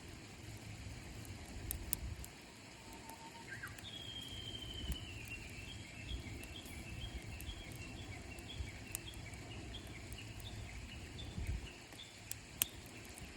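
Japanese bush warbler singing over the steady rushing of a waterfall: a held low whistle and a quick upward flourish, then a long high note sliding down into a long run of rapid repeated 'kekyo-kekyo' notes. A few sharp clicks stand out, the loudest near the end.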